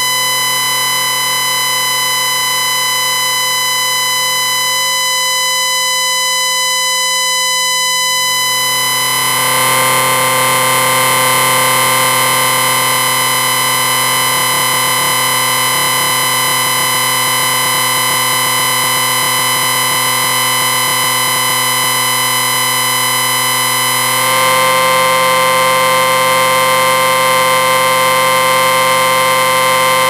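Electric ringing sound effect: a loud, continuous drone of many steady tones held together, growing denser and a little louder about nine seconds in and again about twenty-four seconds in.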